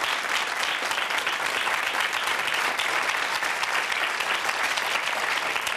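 Studio audience applauding, a steady dense patter of many hands clapping.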